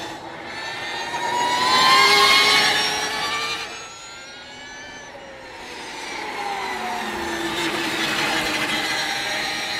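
Energica Ego 45 electric sportbike riding past through a bend: the electric motor's whine glides up and down in pitch with speed. It is loudest about two seconds in, drops to a lull around four to five seconds, then swells again as the bike returns.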